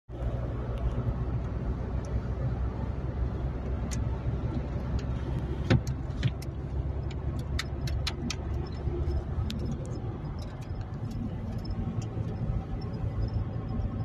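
Steady low rumble of a car driving at road speed, heard from inside the cabin. Scattered sharp clicks and ticks come through, most of them in the middle of the stretch.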